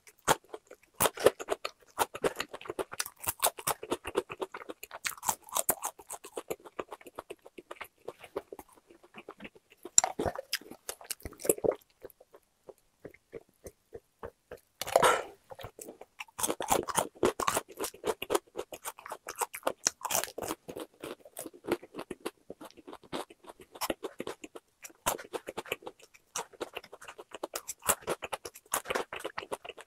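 Close-up crunchy chewing of crispy-coated boneless fried chicken, dense crackles and clicks of the breading breaking between the teeth. About halfway the chewing pauses for a drink through a straw, followed by one loud swallow, then the crunching resumes.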